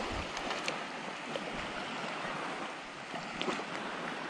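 Shallow water swishing and lapping around a wading angler, a steady even wash with a few faint ticks.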